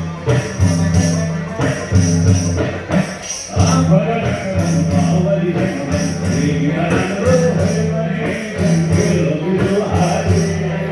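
Live folk music: drums beating a steady rhythm with jingling percussion, and a wavering melody line over it from about four seconds in.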